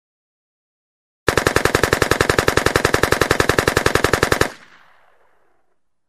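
AK-47 assault rifle firing one fully automatic burst of about three seconds, roughly ten shots a second, then an echo dying away over about a second.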